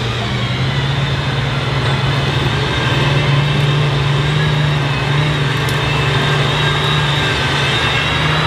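Aston Martin Valkyrie's 6.5-litre Cosworth V12 running at low, steady revs as the car rolls slowly by, a deep even drone with a layered tone above it.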